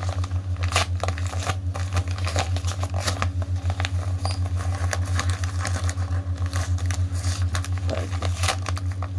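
A mail package being opened by hand: irregular crinkling, crackling and rustling of its wrapping, over a steady low hum.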